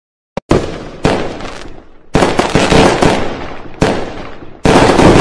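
Fireworks going off: about five loud bangs in a row, each trailing off in crackling, the first coming about half a second in.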